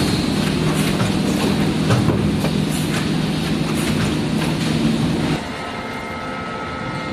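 Factory floor noise: a steady low machine hum with irregular clattering knocks as strapped bundles of corrugated board are pushed along a metal roller conveyor. About five seconds in it cuts abruptly to a quieter, steady hum with a faint high whine.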